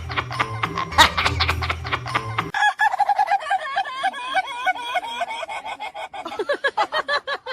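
Music with a heavy bass beat that cuts off about two and a half seconds in, giving way to a fast run of short, clucking, fowl-like calls that repeat several times a second.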